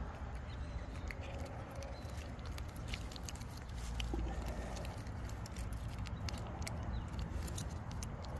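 A cat chewing and licking at a squeeze-tube treat: irregular small wet clicks and smacks from its mouth, coming a little thicker in the second half.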